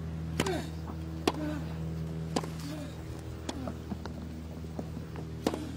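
Tennis ball struck by rackets in a rally on a grass court: a serve, then sharp hits about a second apart, five in all, some followed by a short grunt from a player. A steady low hum sits underneath.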